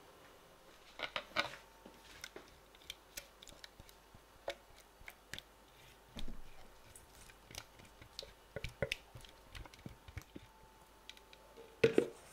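Metal spoon scraping and clinking against a stainless steel mixing bowl while stirring a sticky chocolate and nut mixture: irregular taps and scrapes, a louder clatter about a second in and a sharp knock near the end.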